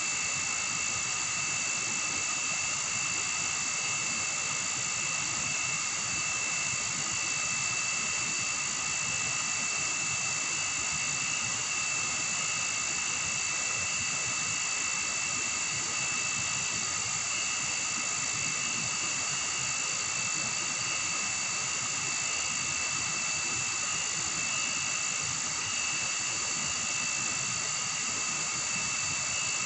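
Steady chorus of night insects in tropical forest: a continuous high buzzing made of several unchanging pitches layered together.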